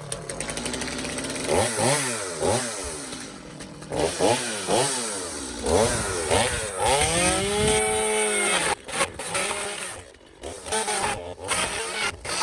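Small petrol engine revving up and down several times, its pitch sweeping repeatedly, with a longer rise and fall about seven to eight seconds in.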